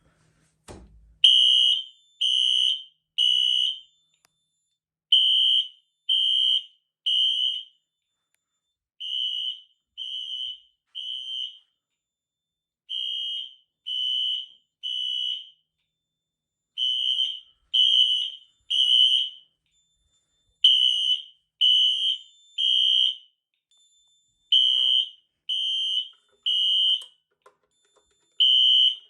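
Fire alarm system in full alarm, its horns sounding the temporal-three evacuation pattern: three high-pitched beeps, a pause, then three more, repeating about every four seconds. It starts about a second in, set off by a manual pull station.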